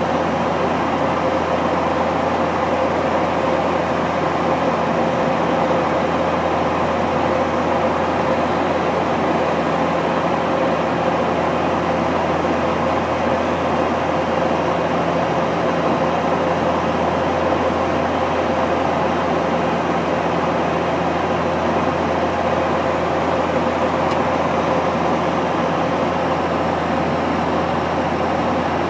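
Flight-deck noise of a De Havilland Canada Dash 8 Q400 in cruise: the steady drone of its PW150A turboprops and propellers, a low hum under the rush of air.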